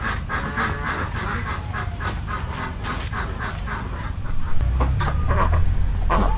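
Farm poultry calling in a quick run of short calls, about three or four a second. A low rumble comes in about four and a half seconds in.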